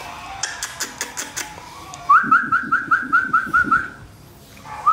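A quick run of sharp clicks, then a person whistling about eight short notes in a row, each sliding upward, about four a second.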